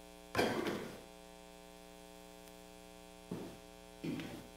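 Steady electrical mains hum, broken by three brief louder sounds: one about half a second in, a short one past three seconds, and one just after four seconds.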